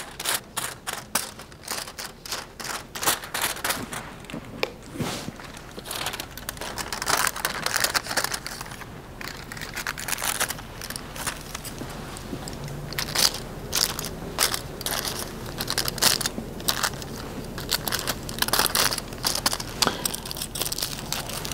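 Aluminium highlighting foil crinkling as it is folded and handled, in an irregular run of short crackles.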